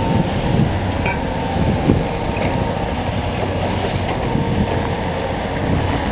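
Demolition excavator running steadily, its diesel engine and hydraulics working as the grab pulls at the brick structure, with a few knocks of masonry, the loudest about two seconds in.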